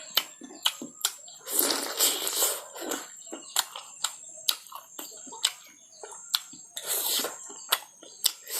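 Close-miked mouth sounds of someone eating fatty pork: wet smacking and chewing clicks, several a second, with longer noisy chewing stretches about two seconds in and again near the end.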